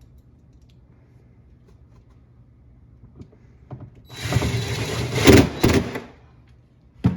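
Hard parts being handled and fitted by hand: about two seconds of loud scraping and rattling with clicks, a faint low hum underneath, then a few sharp knocks near the end.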